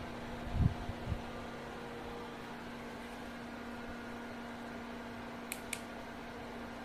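Steady fan hum with a constant low tone, from a running projector's cooling fan. A low bump comes about half a second in, and two quick clicks a fifth of a second apart come near the end.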